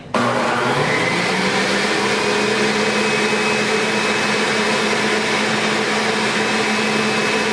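Hamilton Beach centrifugal juicer's motor switching on abruptly, its whine rising in pitch for about two seconds as it spins up, then running steadily and loudly.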